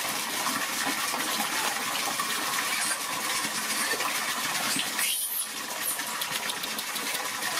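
A steady stream of water pouring and splashing into a large steel basin already full of water, with a brief break about five seconds in.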